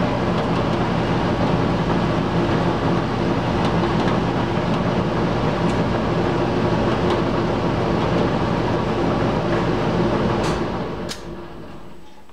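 Belt-driven squirrel cage blower running with a new belt fitted, a loud steady hum with several steady tones; about ten and a half seconds in it is switched off and spins down.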